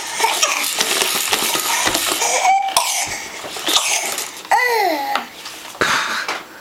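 A voice coughing and giving short laughing sounds, then a high squeal that falls in pitch about two thirds of the way through, with light clicks and clatter throughout.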